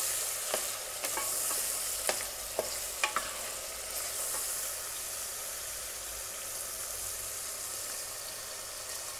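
Meat and garlic-ginger paste sizzling and frying in hot oil in a pressure-cooker pot as a wooden spoon stirs it: the bhuna stage of browning the masala. Several sharp knocks of the spoon against the pot in the first three seconds or so, then steady sizzling.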